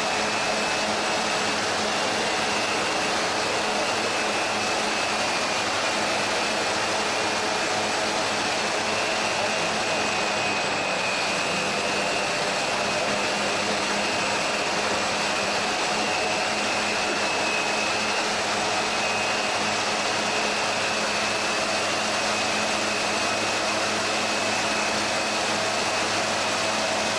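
High-expansion foam generators discharging: a steady rushing blower noise with a constant low hum and a faint high whine.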